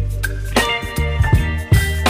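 Background pop music with a steady drum beat and bass line.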